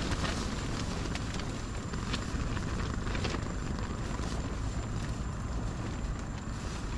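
Steady low rumble of storm wind buffeting an ice-fishing tent, with a few faint scattered clicks.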